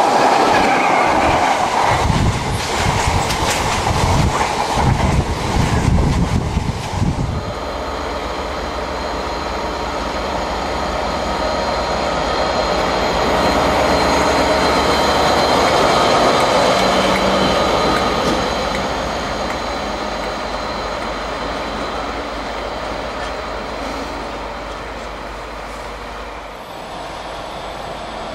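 A freight train passing close at speed, its wheels clattering rapidly over the rail joints for the first seven seconds. Then a Class 57 diesel locomotive, whose EMD two-stroke V12 engine runs with a steady drone that swells as it passes and fades away.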